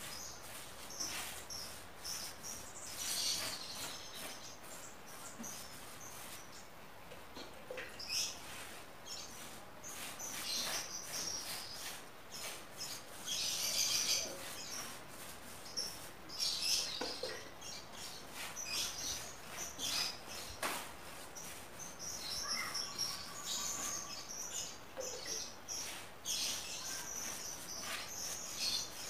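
A paintbrush swishing and scratching across plywood as a thinned base coat of oil paint is brushed on, in short repeated strokes. Birds chirp on and off in the background.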